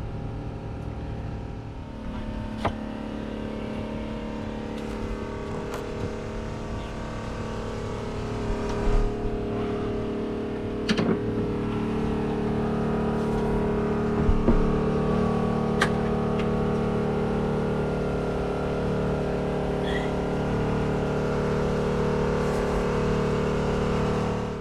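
A steady machine drone with a constant pitch, a little louder from about eight seconds in, with a few sharp clicks and knocks over it.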